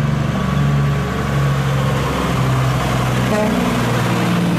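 A motor running steadily, its low hum stepping slightly up and down in pitch, under an even hiss.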